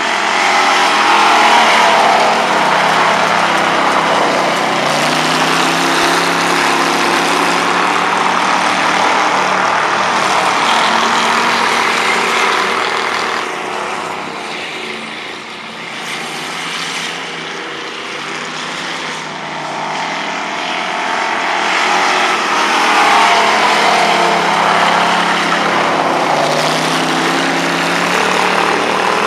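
A dirt-track stock car's engine running hard through practice laps, its pitch rising and falling as it revs and lifts. It is loud as the car passes close, fades about halfway through while the car is on the far side, then grows loud again.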